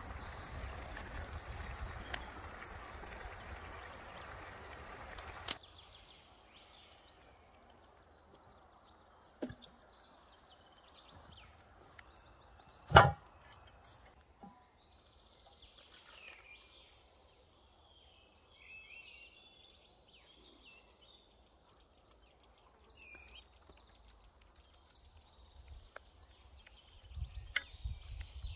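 A cast-iron pot simmering over a campfire, a steady hiss for about five seconds that cuts off abruptly, then quiet woodland with faint scattered bird calls. About thirteen seconds in, a single sharp knock is the loudest sound.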